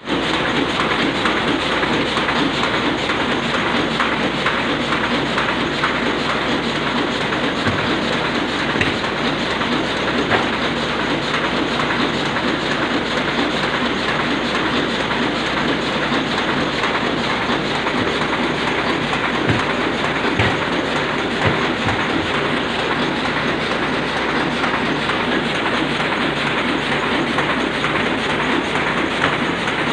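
Sakurai Oliver 66 sheetfed offset printing press running, a steady, continuous mechanical clatter.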